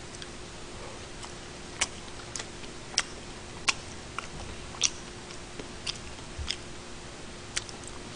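Close-up eating sounds from chopsticks and chewing: sharp, irregular clicks and mouth smacks, roughly one a second, over a faint steady hum.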